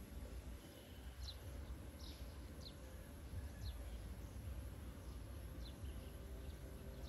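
Faint, short, high chirps from a small bird, each sliding down in pitch, about half a dozen spaced irregularly, over a low steady rumble.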